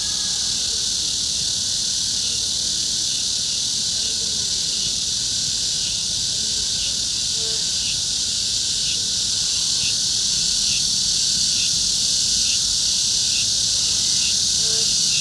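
A dense, steady, high-pitched chorus of summer insects, with a fainter chirp repeating about every two-thirds of a second through the second half.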